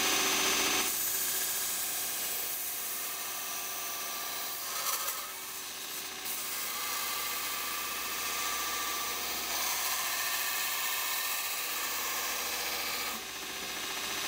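Large belt grinder running with an 80-grit ceramic belt while a forged railway-spike knife blank is held against it, steel being ground to shape the blade.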